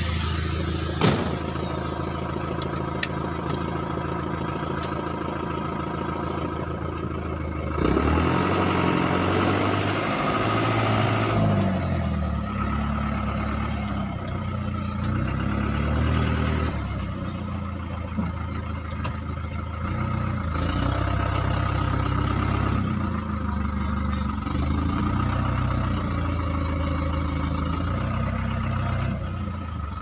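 Vehicle engine running, heard from inside the cab, its speed rising and falling in changes from about eight seconds in. A sharp knock about a second in.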